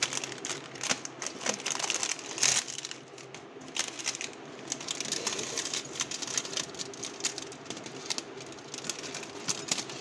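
Plastic Knorr instant-noodle packet crinkling and crackling in the hands as it is shaken over a bowl, with irregular crackles that are loudest about two and a half seconds in.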